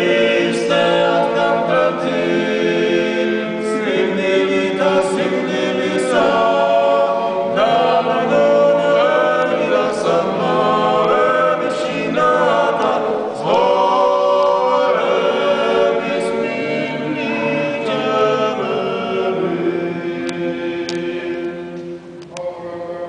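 A small group of men singing Georgian Orthodox church chant a cappella, in sustained chords that move phrase by phrase. The singing dies away near the end.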